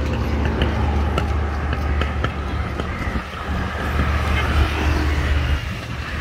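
Road traffic with motor scooters passing, over a steady low rumble.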